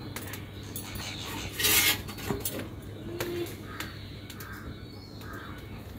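Crows cawing repeatedly, with several caws in the second half. Moringa leaves are pulled off their stems by hand, with a brief loud rustle about two seconds in.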